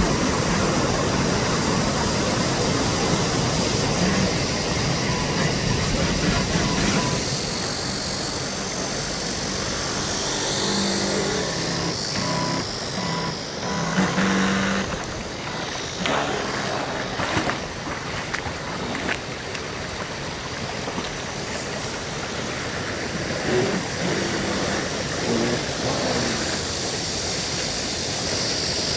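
Shallow river water rushing steadily, with the small brushed electric motor and propeller of a Henglong 3810 RC tugboat humming as the boat runs close by. A few brief knocks come about halfway through.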